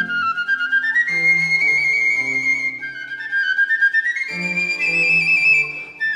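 Instrumental music: a high melody of held notes that climbs in steps, over lower sustained accompaniment.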